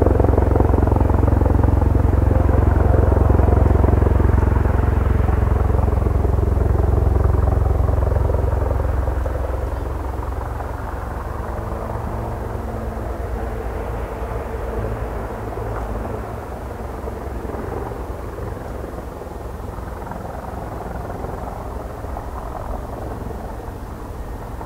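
Helicopter flying low, its rotor beating rapidly under the turbine noise; loud for the first eight seconds or so, then easing to a lower, steady level.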